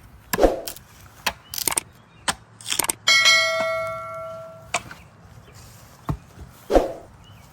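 A metal object struck once about three seconds in, ringing with a clear bell-like tone that fades for about a second and a half before being cut short. Scattered knocks and clatter sound around it.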